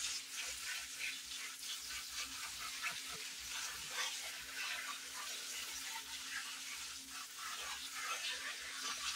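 Water from a kitchen faucet's pull-down sprayer hissing onto a colander full of quelites (wild greens), with wet leaves rustling and crackling as a hand turns them over to rinse them.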